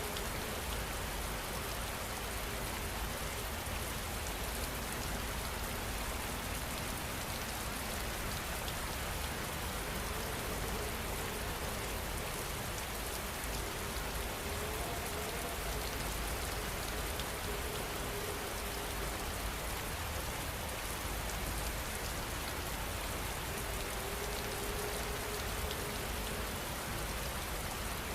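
Steady rain falling, an even unbroken hiss of drops. A faint wavering tone comes and goes under it.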